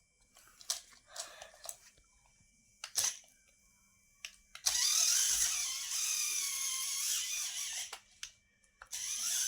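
Small electric motor whining for about three seconds, its pitch wavering, after a few sharp clicks; the whine starts again near the end.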